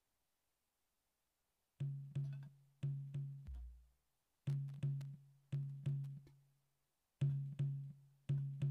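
Drums of a Javanese jaranan (kuda lumping) ensemble starting up about two seconds in. A pitched drum is struck in repeating groups of four sharp, quickly decaying strokes, with a deep bass stroke after the first group.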